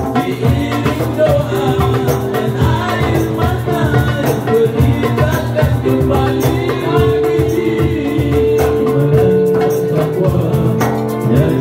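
Live nasyid band playing: darbuka, rebana frame drum and cajon keep a steady hand-drum rhythm under held keyboard chords, with male voices singing.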